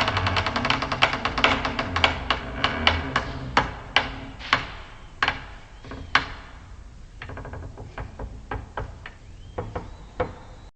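Door knocking and rattling in a scary door sound effect: a fast run of sharp wooden knocks over a low drone, the knocks spacing out and growing fainter as the drone fades away.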